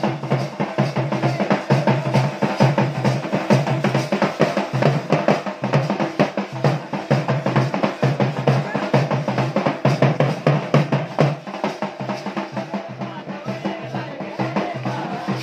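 Fast, steady drumming in a Garhwali folk-dance rhythm, with deep beats under sharper strokes.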